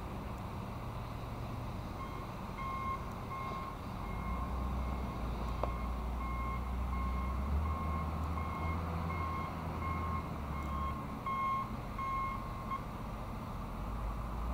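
A truck's reversing alarm beeping at an even pace, about one and a half beeps a second, starting about two seconds in and stopping near the end, over the low rumble of a truck engine.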